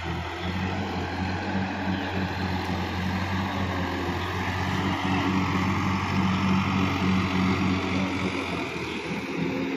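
Sonalika DI-50 RX tractor's diesel engine running steadily as the tractor works through a flooded paddy field, a low even hum that swells a little in the middle.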